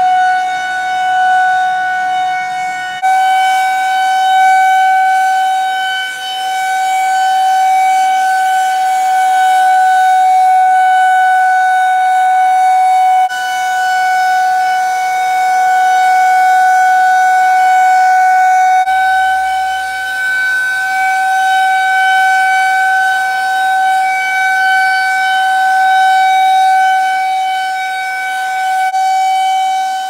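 Outdoor tornado warning siren sounding a steady tone during a scheduled test: one held high note that neither rises nor falls in pitch, swelling and fading a little in loudness.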